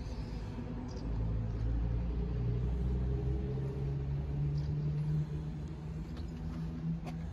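A vehicle's engine running, a low rumble with a steady hum that climbs slightly in pitch, then drops away about five seconds in.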